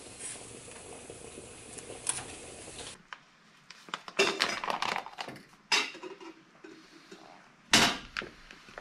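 A cooking utensil clinking and scraping against a pot as pasta and bolognese sauce are stirred. There are several sharp clinks in the middle, the loudest one near the end, after a steady hiss in the first three seconds.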